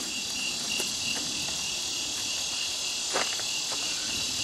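Chorus of night insects: a steady high shrill with a regular pulsing chirp several times a second. A faint knock about three seconds in.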